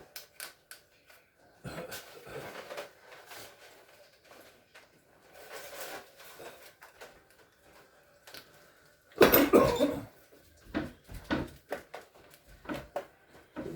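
Scattered clicks, taps and knocks of refrigerator parts being handled during a damper replacement, with one louder clatter lasting under a second about nine seconds in.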